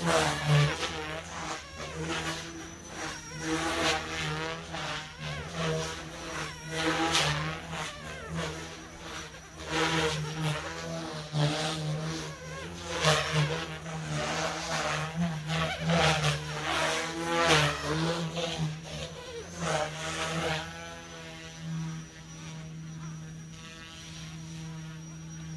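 Goosky S2 mini RC helicopter flying: a steady electric motor hum and high whine, with the rotor blades rushing in loud swells as it manoeuvres, settling to a steadier sound over the last few seconds.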